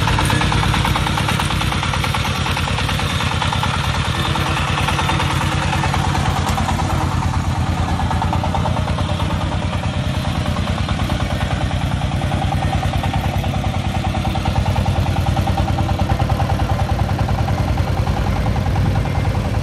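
Công nông farm truck's single-cylinder diesel engine running steadily, with a rapid even chugging beat, as the truck pulls away.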